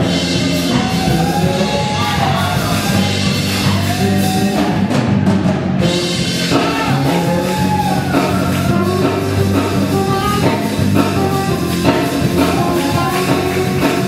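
Live church worship music: singing voices over a band with drums and a steady bass line.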